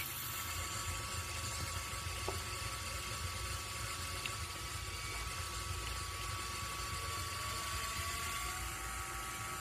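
Small Lego electric motors driving a Lego chain and gear train, a steady whir. About seven seconds in a faint whine rises in pitch and then holds as the chain output speeds up.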